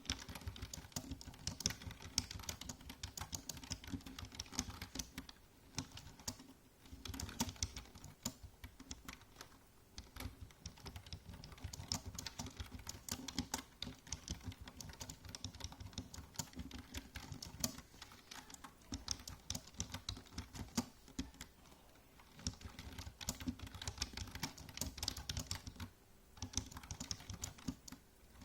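Typing on a computer keyboard: a rapid run of key clicks in bursts, broken by short pauses every few seconds.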